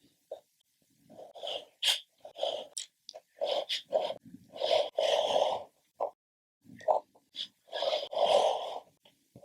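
Drawing or painting strokes scraping across paper, close up: a run of short, irregular strokes of varying length with silent gaps between them.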